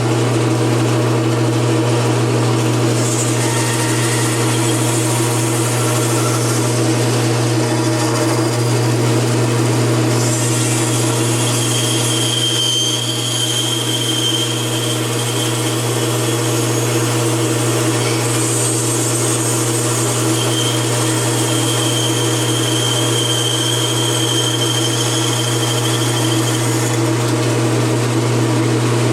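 Bandsaw running with a steady low hum while its blade cuts through a block of wood to hollow out the inside of a box. A higher whine comes and goes as the blade works through the cut.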